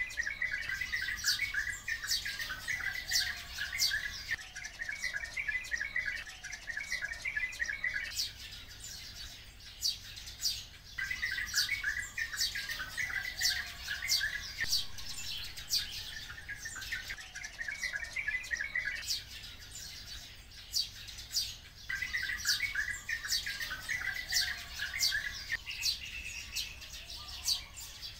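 A flock of oriental white-eyes and sparrows calling together: many sharp, high chirps overlapping, with bursts of fast chattering that come and go every few seconds.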